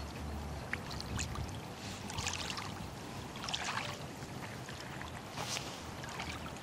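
Small waves washing against a shingle shore, with wind rumbling on the microphone; a steady soft wash with faint splashes now and then.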